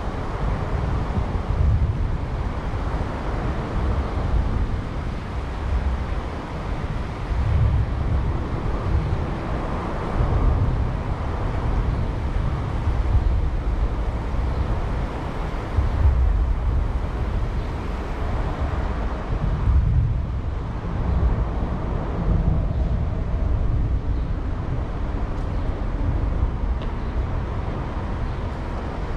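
Outdoor residential-street background: a low, uneven rumble that swells and falls every second or two over a faint steady hiss.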